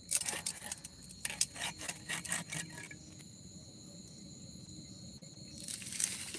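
Small fish being scaled and cleaned against an upright curved fish-cutting blade, a quick run of short scraping strokes for about three seconds, then a pause and a little more near the end. Insects trill steadily at a high pitch behind it.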